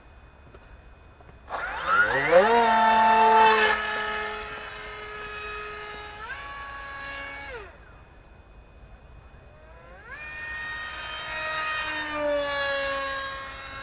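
FPV quadcopter's electric motors with propellers, whining up in pitch as the throttle rises, holding, then dropping away. Two such throttle runs: the first from about a second and a half in, stepping up again and cutting back near the middle; the second from about ten seconds in.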